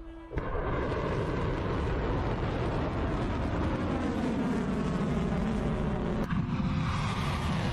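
Missile launch: a rocket motor ignites with a sudden, loud rushing noise that holds steady as the missile climbs, with faint downward-sweeping tones in the rush. It breaks off briefly about six seconds in and then carries on.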